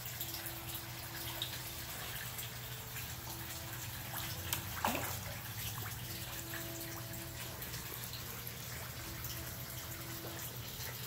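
Water running and trickling steadily in a koi pond, with small clicks and splashes from koi feeding on floating pellets at the surface, and a steady low hum underneath.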